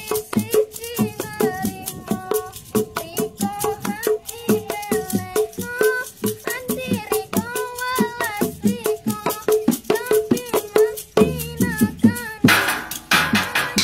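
Fast hand drumming on small improvised drums with rattling percussion, under a sung melody. About eleven seconds in the melody stops while the drumming carries on, and a little later a cymbal-like metal crash comes in.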